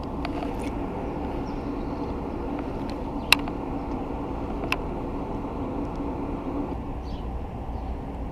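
Steady low mechanical hum, like an engine or machinery running, with two sharp clicks about a second and a half apart, the first the louder.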